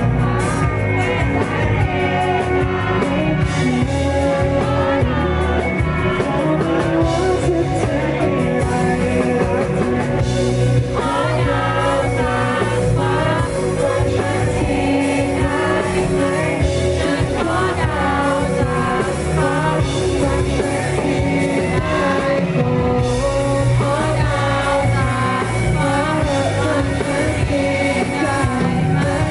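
Male singer singing into a handheld microphone over live band accompaniment with a rock feel.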